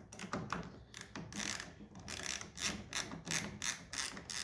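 A 7/16 ratchet wrench clicking in quick, uneven strokes, about three or four a second, as it tightens the clamp screws of a steering-wheel spinner knob.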